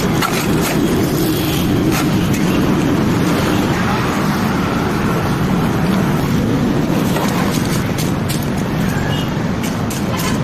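Road-construction machinery engine running steadily, with scattered sharp clicks and knocks.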